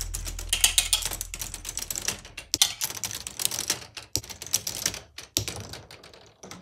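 Plastic balls clicking and clattering through a K'nex ball machine's plastic track and parts. A quick, irregular run of clicks thins out toward the end and then stops abruptly.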